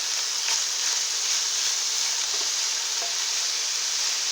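Chopped Swiss chard stems and onion sizzling in olive oil in a frying pan: a steady frying hiss, with a few faint light knocks from stirring.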